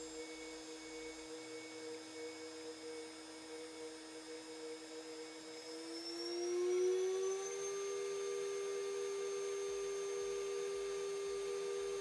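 CNC router spindle driven by a Huanyang VFD, running with a steady whine. About six seconds in it speeds up, and the pitch rises over a couple of seconds before holding steady at the higher speed.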